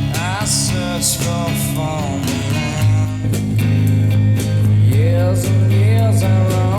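A rock song with a sung vocal, guitar, heavy bass and a steady drum beat, played back through hi-fi loudspeakers.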